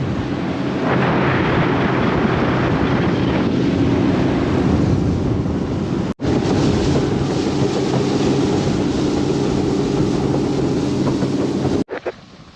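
Boat motor running steadily at speed with wind buffeting the microphone. The sound breaks off sharply once about six seconds in, resumes, and stops abruptly near the end.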